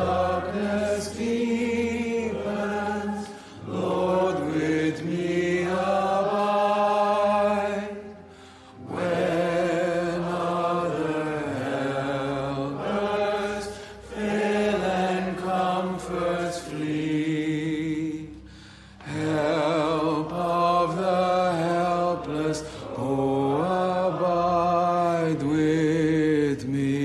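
A man's voice singing a slow hymn in long held notes, phrase by phrase with short breaks for breath.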